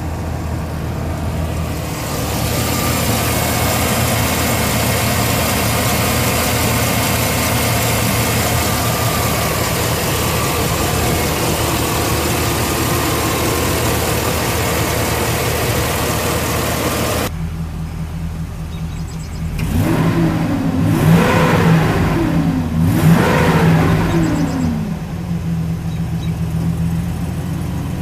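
Chevrolet Silverado 2500HD's 6.0L gas V8 running at a steady idle under a loud, even hiss. The sound changes abruptly to a cleaner idle about two-thirds of the way in, then the engine is revved twice, each rev rising and falling back, and settles to idle again.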